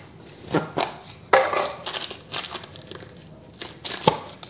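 Metal lathe accessories in plastic bags being handled and lifted out of a cardboard box: a handful of sharp knocks and clinks, the loudest a little over a second in and near the end.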